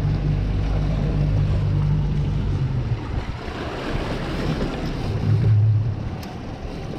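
Outboard motors running with a steady low hum, under the wash of water against the hull and wind on the microphone. The engine hum fades beneath the water noise midway and comes back strongly near the end.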